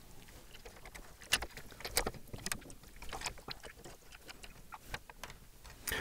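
Faint, scattered clicks and taps of plastic building-brick parts. The detached ladder of a Mould King 17023 brick-built bulldozer model is being fiddled back onto its short axle.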